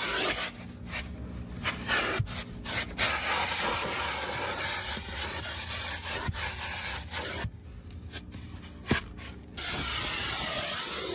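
Car-wash vacuum hose sucking as its nozzle is scraped over car floor carpet: a steady hum and rushing hiss with scattered sharp clicks. The hiss drops for about two seconds, some seven and a half seconds in, then returns.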